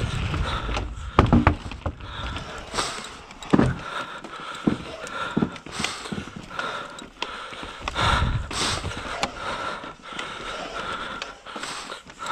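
Mountain bike rolling fast over a wooden boardwalk: tyres clattering across the slats in a run of uneven knocks, the bike rattling, with two hard clacks about one and three and a half seconds in. Wind rumbles on the camera microphone at the start.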